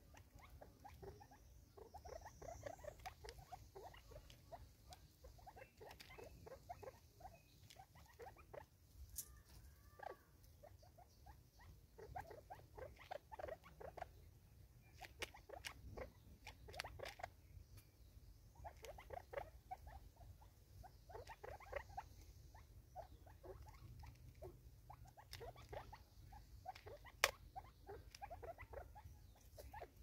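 Francolins pecking seed off a wooden tree stump: a quiet, irregular patter of small taps in short clusters, with one sharper click near the end.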